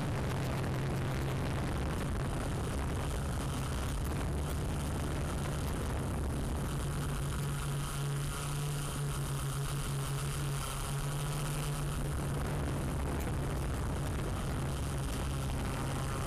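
Camera drone's propellers running, picked up by the drone's own microphone: a steady low hum over a dense hiss, with a brief dip in level about eight seconds in.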